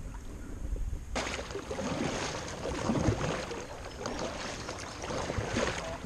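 Kayak paddle strokes splashing in river water, with water washing along the hull, starting about a second in. Before that, a low wind rumble on the microphone.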